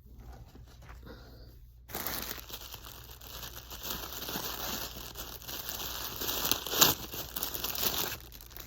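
Packaging crinkling and tearing as it is unwrapped by hand, starting about two seconds in and going on for several seconds, with its loudest crackle near the end.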